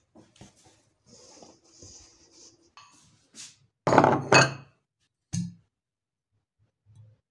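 Ceramic bowls set down on a kitchen counter: two loud clinking knocks about four seconds in and another a second later, with faint handling noises around them.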